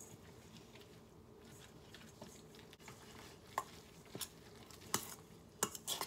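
Spoon stirring a wet mixture of shredded radish, egg and almond flour in a stainless steel mixing bowl. Faint at first, then from about three and a half seconds in a handful of sharp clinks of the spoon against the metal bowl, coming closer together near the end.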